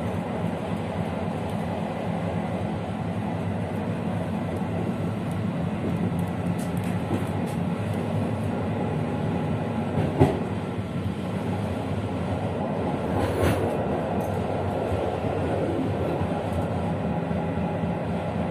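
Passenger train carriage rolling along the track: a steady rumble of wheels on rails, with a sharp knock about ten seconds in and a brief rougher clatter a few seconds later.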